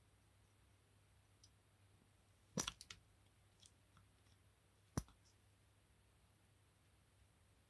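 Clicks from the pushers and crown of a Seiko V175 solar chronograph watch worked by hand: a quick run of clicks about two and a half seconds in, then one sharp click about five seconds in, in an otherwise near-silent room.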